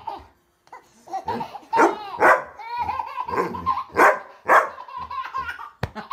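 A dog barks several times, and a baby laughs in fits between the barks.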